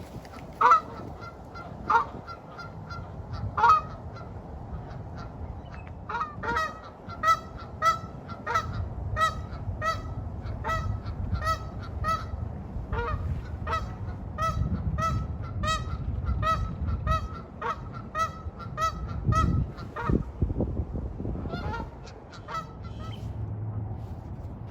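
Canada geese honking: a few loud single honks in the first four seconds, then a long run of quick repeated honks, about two or three a second, that eases off a few seconds before the end.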